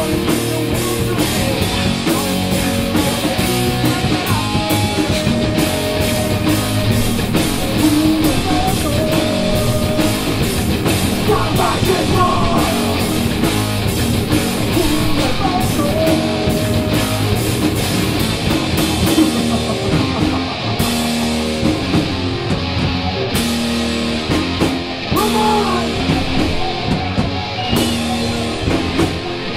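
Live heavy metal band playing: distorted electric guitars over bass guitar and a drum kit, with held guitar notes and steady drumming.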